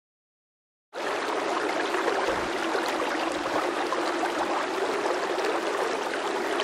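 Steady noise of rough surf washing onto a sandy beach, cutting in suddenly about a second in after silence.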